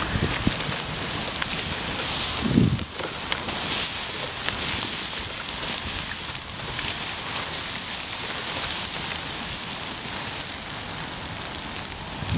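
Water poured from a plastic bottle onto burning matches and embers, a steady hiss and sizzle with small crackles as the fire is put out. A low rumble under it stops suddenly about three seconds in.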